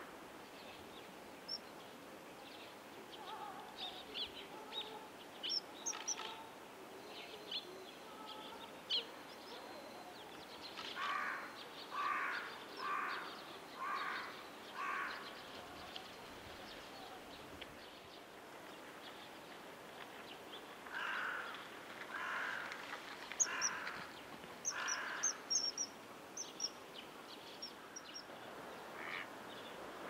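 Wild birds calling: two runs of harsh, repeated calls about once a second, with short, thin, high chirps scattered between them over a steady background hiss.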